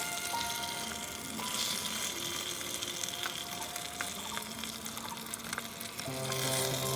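Background instrumental music with held notes, over a steady hiss with small scattered crackles.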